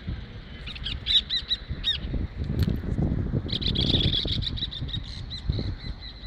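Small birds chirping: a quick run of short, high notes about a second in, then a denser burst of chattering from about three and a half seconds, over a low rumble.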